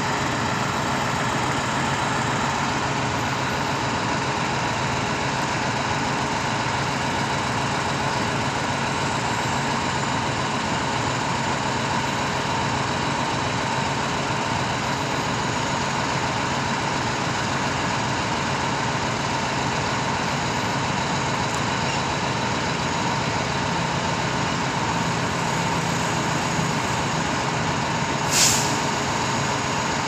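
Truck-mounted Schwing concrete pump's diesel engine running steadily while it powers the hydraulics unfolding the boom, with a faint steady whine over it. A brief sharp hiss sounds near the end.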